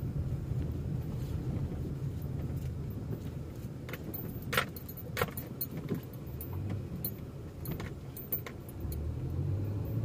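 Steady low road and engine noise heard from inside a moving car's cabin, with a few sharp rattles and clicks about four to five seconds in and again around seven to eight seconds.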